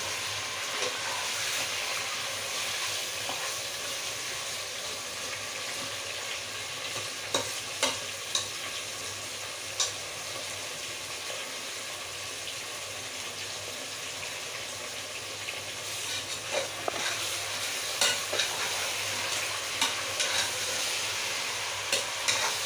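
Chicken pieces sizzling as they fry in oil in a pressure cooker, before the spices are added. A steel slotted spoon stirring them knocks against the pot now and then, mostly about a third of the way in and again near the end.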